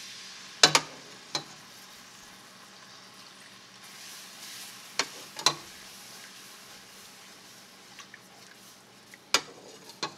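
Pan drippings poured into a butter-and-flour roux in a non-stick skillet, sizzling steadily as it is stirred with a wooden spoon. Utensils knock sharply on the pan about six times.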